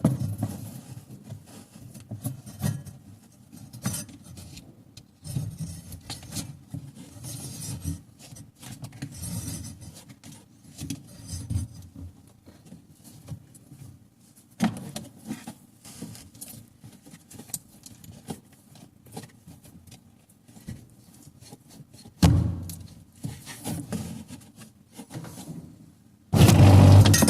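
Irregular clinks, knocks and rubbing of hands and tools working on a semi-automatic washing machine during a belt repair. A loud steady sound starts abruptly near the end.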